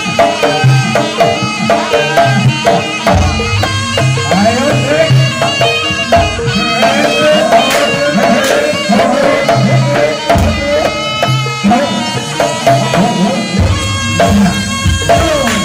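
Live Javanese jaranan music in the Kedirian style: hand drums beating a rhythm under a tuned gong-chime ensemble, with a wavering, reedy melody line coming in about six seconds in.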